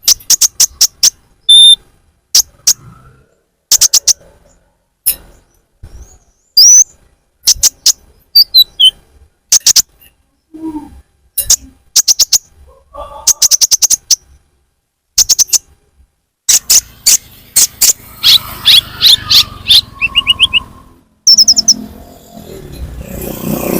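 Konin (kolibri ninja) bird calls played as a trapping lure: sharp, very high chirps in quick clusters separated by short pauses, with a few brief trills and whistled notes. A steady hiss of background noise comes in about two-thirds of the way through.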